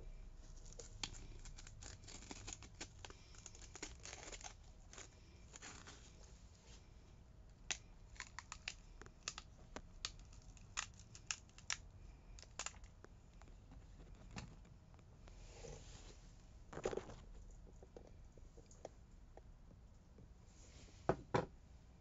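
A large green Antep acı dolma pepper torn apart by hand: crisp crackling and tearing of the pepper flesh for the first few seconds, then a scatter of sharp snaps. A couple of louder knocks near the end as the halves are set down on a stainless steel kitchen scale.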